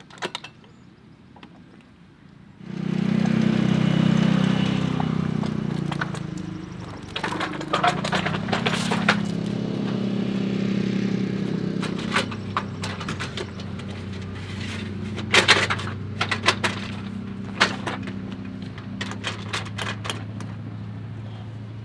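Metal clicks and clanks of a manual RV roll-out awning being pulled open and its support arms set. Behind them a steady engine-like drone starts abruptly about three seconds in and is the loudest sound.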